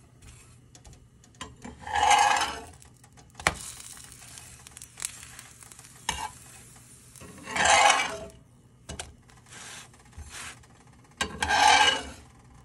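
A spatula scrapes across a dry cast-iron skillet three times as it slides under a tortilla to flip it. There are a few light clicks of the spatula on the pan in between.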